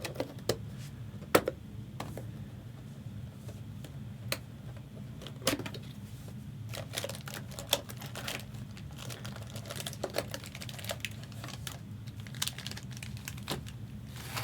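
Scattered clicks, taps and light crinkles of thick plastic booster packs and trading cards being handled, over a steady low hum.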